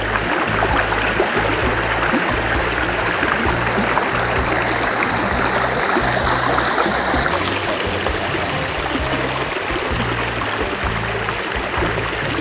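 Steady rushing of a shallow river running over stones.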